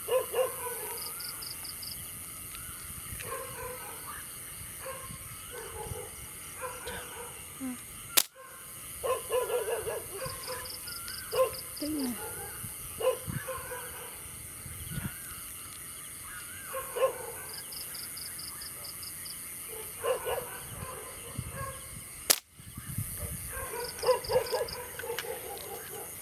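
Short bark-like animal calls repeated at irregular intervals through the night, with a brief high, rapid trill every several seconds. Two sharp clicks, the loudest sounds, each come with a momentary gap in the sound.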